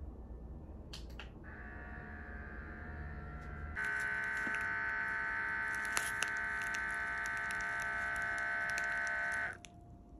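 Automatic upper-arm blood pressure monitor's small pump motor buzzing steadily as it inflates the cuff. It gets louder about four seconds in and stops suddenly near the end, when the cuff has reached full pressure and begins to deflate.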